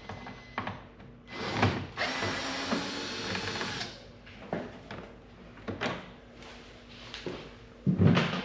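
Power driver running for about two and a half seconds, backing out a screw from the UTV's front fender panel, followed by scattered clicks and knocks and a louder knock near the end.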